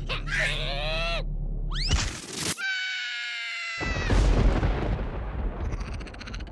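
Cartoon character squeals and slapstick sound effects: a squeal falling in pitch, a quick rising squeal, a held high cry, then a loud boom-like crash about four seconds in.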